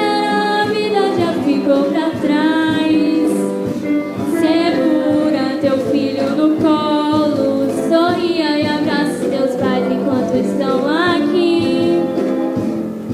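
A girl singing a Portuguese-language pop ballad into a microphone, with acoustic guitar accompaniment; the sung line moves between long held notes and short gliding phrases.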